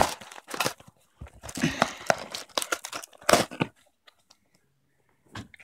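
Shipping package being torn open by hand: a quick run of irregular rips and crinkling rustles that stops about three and a half seconds in.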